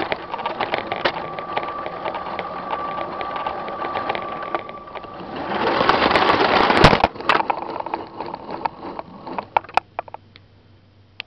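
Motorised Lego train running on plastic track: the small electric motor whirs with a thin steady whine for the first four seconds while the wheels click rapidly over the track. About six seconds in comes a louder rushing clatter, then scattered clicks, and the sound falls away near the end.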